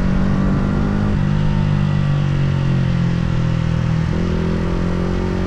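Yamaha R125's single-cylinder 125cc four-stroke engine heard from the rider's seat while riding. Its pitch steps down about a second in and sinks slowly, then jumps up about four seconds in with a downshift. Wind rumble sits underneath.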